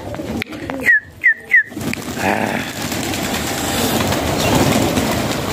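A flock of domestic pigeons taking off together, with a dense rush of many flapping wings from about two seconds in. Just before it come three short, sharp, falling whistles.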